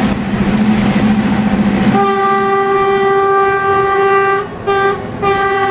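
Passenger train running along the track with a rolling rumble. From about two seconds in, the train's horn sounds one long steady single-tone blast, broken off twice briefly near the end.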